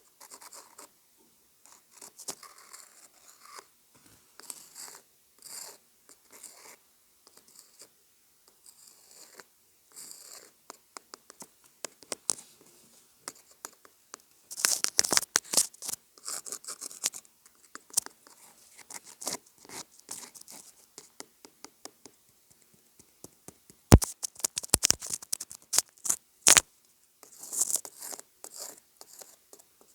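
Close-miked ASMR scratching and tapping on a homemade object: irregular light scratchy rustles and small clicks, with a cluster of sharp, louder clicks near the end.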